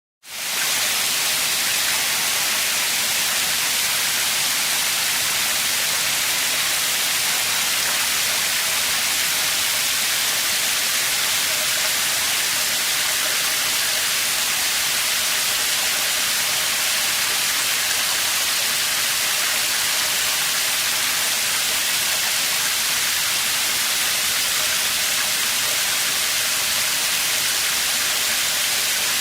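Shower water running steadily, an even hiss of spray falling.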